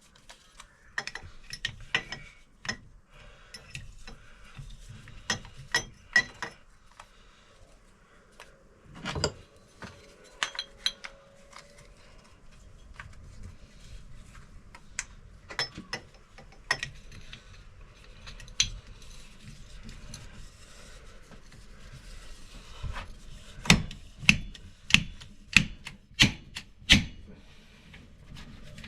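A fork seal driver is worked along a KYB fork tube, tapping the new fork seal into the outer tube. There are scattered knocks and clicks with some rubbing between them, then about seven harder strikes, roughly two a second, near the end as the seal is driven home.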